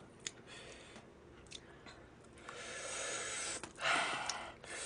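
Chewing and biting into a piece of glazed fried chicken close to the microphone: a few small clicks, then two longer noisy stretches past the halfway point.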